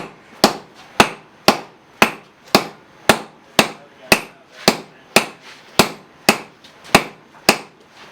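Sledgehammers striking hot steel on an anvil in a steady rhythm, about two blows a second, each with a short metallic ring, as a team of strikers forges the head of a tack.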